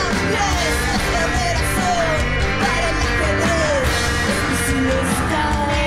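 Live rock band playing: drums, keyboard and electric guitar, with a woman singing, her voice sliding down in pitch in several phrases.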